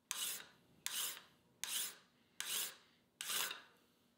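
Hand file drawn across the edge of a small steel fly-cutter insert clamp held in a bench vise: five rasping strokes at a steady pace, about one every 0.8 s, each starting sharply and tailing off.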